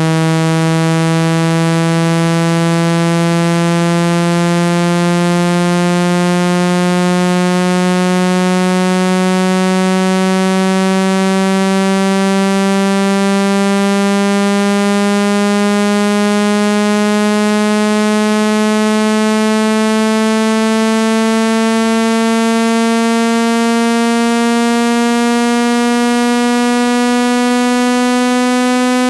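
A loud, buzzy electronic test tone with many overtones, sweeping slowly and steadily upward in pitch, played to push dust and water out of a phone speaker grille.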